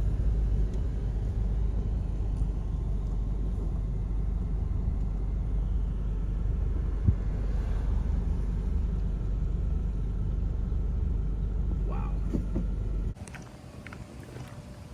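Steady low rumble that cuts off abruptly near the end, leaving a much quieter background with a few faint clicks.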